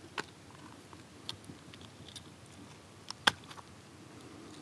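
Small, scattered clicks and ticks of hands working the hooks of a hollow-body frog lure out of a small bass's mouth over a landing net, with one sharper click a little over three seconds in.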